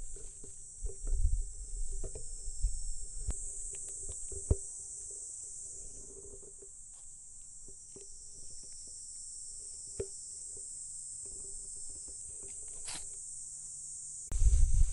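Steady high-pitched chirring of insects in the grass, with scattered clicks and low rumbles of handling noise, and a loud low rumble in the last half-second.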